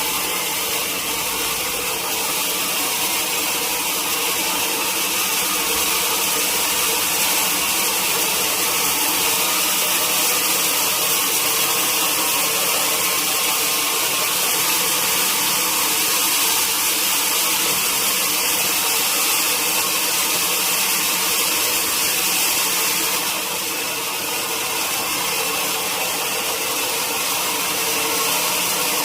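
Sawmill saw running steadily through wood: a continuous high hiss of cutting over a steady machine hum, easing slightly about two-thirds of the way through.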